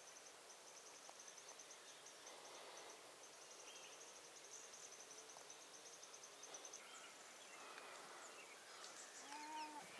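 Near silence: faint outdoor ambience. A steady, finely pulsed high chirring runs for the first six or seven seconds, with a few faint chirps and a short call about nine seconds in.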